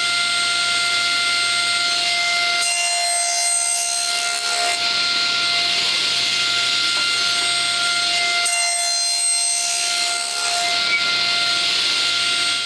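Table saw with a 10-inch blade running with a steady whine, cutting into pallet-wood boards twice: once about three seconds in and again about eight and a half seconds in. The saw cuts off at the end.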